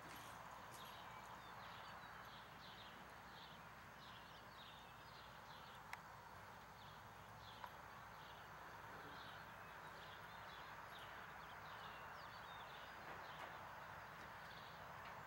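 Faint, soft rhythmic hoof steps of a ridden horse walking on arena sand, with two sharp clicks near the middle.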